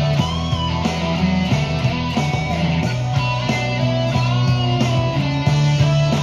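Electric guitar playing a boogie riff over a steady beat, with bent notes sliding up and back in pitch and the low notes changing every couple of seconds.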